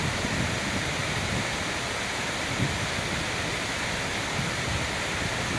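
Waterfall heard close up: a dense, steady rush of falling water and spray.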